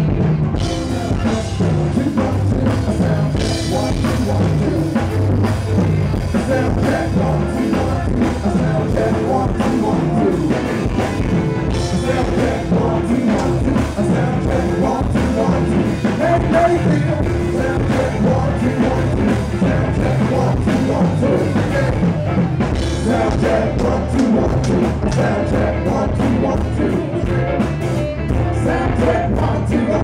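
Live band playing a rock song through a PA system, with a singer over drum kit and electric guitars.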